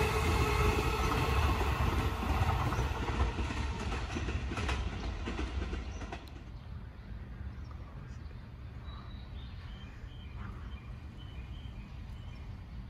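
Red-striped E233-series electric train moving at the platform: wheels on rail with several steady tones from the train, dying down over about six seconds. About six seconds in, this cuts to quieter station background with a few faint high chirps.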